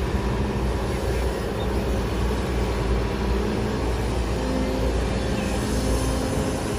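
Kobelco crawler excavator's diesel engine running steadily as the machine works, loading sand into a dump truck.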